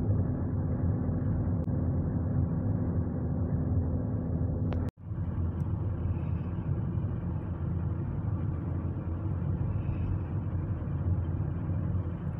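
Steady low rumble of road and engine noise heard from inside a moving car. It drops out for a split second about five seconds in, then carries on.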